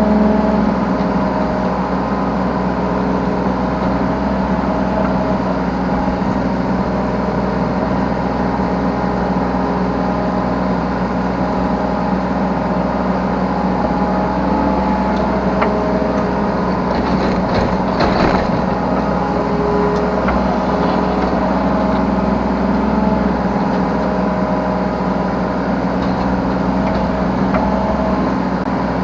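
Yanmar B3 Sigma 3-tonne mini excavator's diesel engine running steadily while it works, with a whine that comes and goes as the hydraulics move the arm and bucket. A brief noisier clatter about eighteen seconds in.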